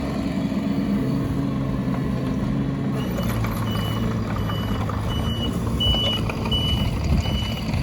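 Bobcat E16 mini excavator's diesel engine running steadily. About three seconds in, its travel alarm starts beeping, a high beep about three times every two seconds, as the machine starts moving.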